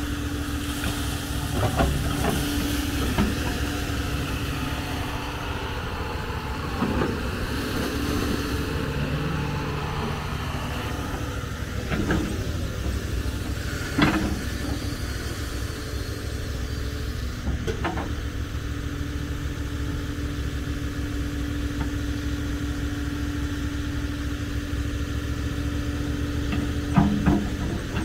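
John Deere 210G excavator's diesel engine running steadily, with a held hum over it that drops out briefly near ten seconds in, and about seven sharp clanks spread through.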